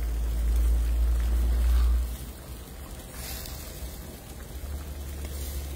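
Calabash squash curry sizzling and starting to boil in a steel frying pan over a wood fire, stirred with a wooden spoon. A low rumble lies under it, loudest for the first two seconds.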